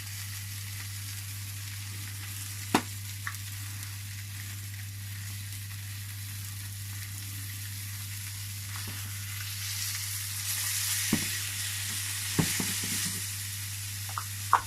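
Flour-dusted fish fillets sizzling as they fry in oil in a pan, the sizzle swelling louder for a few seconds near the end. A steady low hum runs underneath, and a few short sharp knocks stand out.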